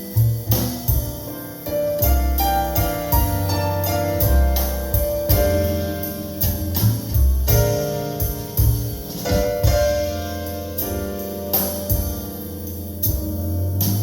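Jazz piano trio recording played back over Definitive Technology Mythos ST floor-standing loudspeakers: piano chords and melody over low bass notes, with frequent cymbal strikes from the drums.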